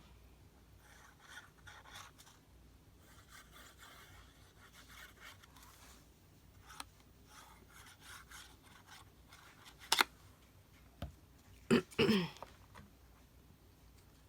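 Paper being handled: faint rubbing and scraping of paper pieces on the page, with a few sharp taps and a crinkle in the last few seconds.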